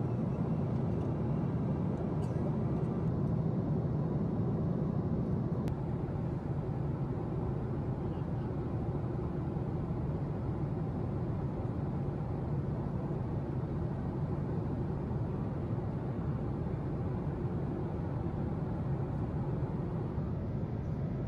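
Steady low drone inside the passenger cabin of a Boeing 767-400 in cruise at about 36,000 ft: engine and airflow noise heard from the seat. It eases slightly about six seconds in.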